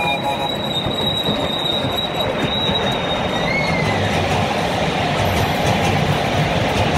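Miniature ride-on railway train running along the track: a steady rolling rumble with a high wheel squeal that ends about three seconds in with a short upward chirp. The rumble gets heavier in the second half.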